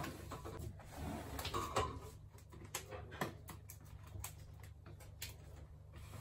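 Scattered light taps, clicks and rubbing as a PVC wall panel is handled and pressed against the wall.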